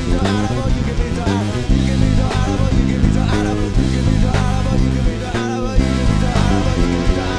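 Live band playing a rock song with drums, bass guitar, electric guitar and synthesizer keyboard, over a steady drum beat. The bass drops out briefly about five and a half seconds in.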